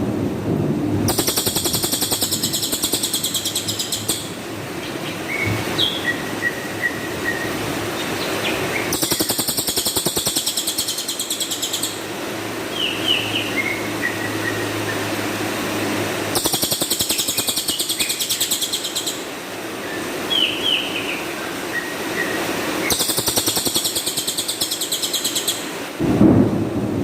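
Cililin songbird singing in bursts of very rapid, rattling high notes, each about three seconds long and coming about every seven seconds, with a few short, softer chirps between the bursts. Bird-keepers call this rough repeated phrase 'tembakan' (a shot).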